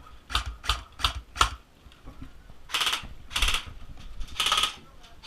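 Airsoft rifle shooting: four sharp shots in quick succession in the first second and a half, then several longer, louder bursts of fire, laid down as suppressing fire.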